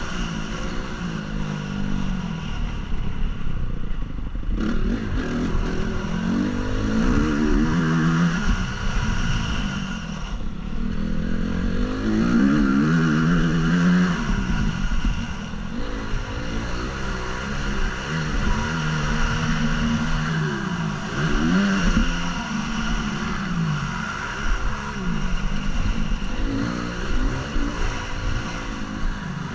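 2014 Honda CRF 250 motocross bike's four-stroke single-cylinder engine revving up and falling back again and again as the throttle is opened and closed through the laps, heard from a helmet-mounted camera.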